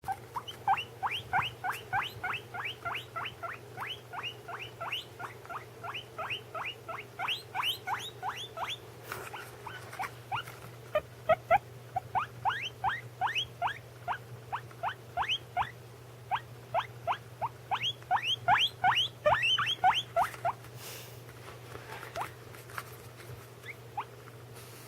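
A guinea pig squeaking in a long rapid series of short rising squeaks, about three a second. They stop about twenty seconds in, and a couple of single squeaks follow.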